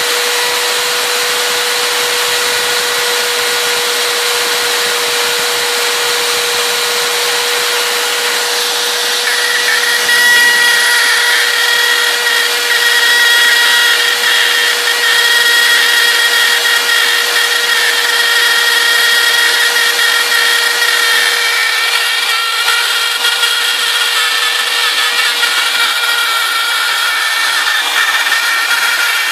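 RotoZip spiral saw on a homebrew CNC machine, its wood-cutting bit routing slowly through PVC with a steady high whine. About ten seconds in the cutting grows louder, with added higher tones.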